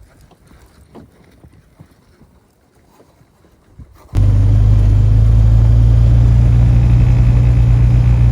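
Faint rustling and small ticks, then, about four seconds in, a sudden cut to a loud, steady low rumble of a running engine.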